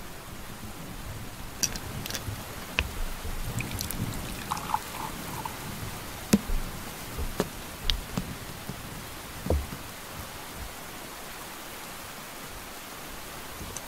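Steady rain with an even hiss. Over it, for the first ten seconds or so, come scattered sharp clinks and knocks of glass bottles and a drinking glass being handled.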